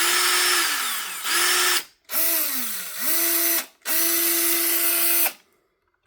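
DeWalt 20V MAX cordless drill/driver running free in three bursts on the trigger, its motor whine dipping in pitch and climbing back as the trigger is eased and squeezed, then stopping about five seconds in.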